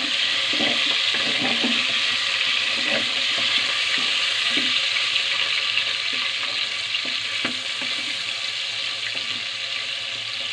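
Salted pork belly cubes sizzling steadily in hot oil in a pot, stirred with a wooden spatula that knocks and scrapes lightly against the pot. The sizzle eases a little toward the end.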